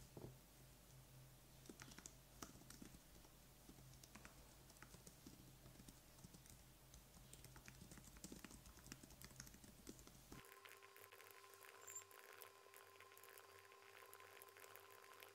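Faint keystrokes on a low-profile computer keyboard, typing in irregular runs of soft clicks.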